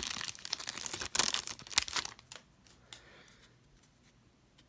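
Foil baseball-card pack wrapper being torn open and crinkled: a dense run of crackling and tearing that stops a little over two seconds in.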